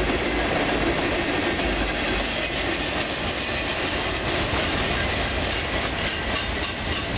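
Freight cars of a CN train rolling past: a steady rumble and clatter of steel wheels on the rails.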